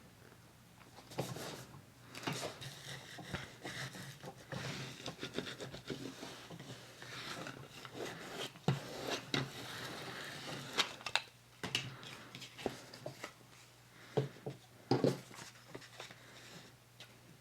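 Paper being handled and rubbed against the work surface: rustling and sliding, dense for most of the stretch and thinning to a few sharp taps and clicks near the end.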